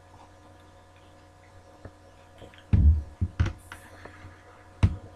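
A person vaping an e-cigarette: near-quiet while drawing on it, then a few low, breathy puffs of the exhale about three seconds in, and a sharp click near the end.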